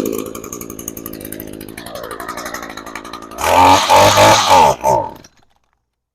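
Echo PAS-225 trimmer's two-stroke engine, just started, running and settling to a lower idle. About three and a half seconds in it is revved loud for nearly two seconds, then it stops suddenly.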